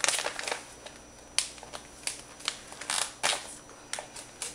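Irregular sharp clicks and light crinkling of packaging and kitchen utensils being handled, about ten in all.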